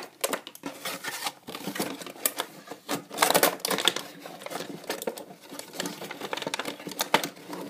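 A Funko Pop vinyl figure and its clear plastic insert being pushed back into the cardboard window box: an irregular run of plastic clicks, taps and crinkles, busiest about three seconds in.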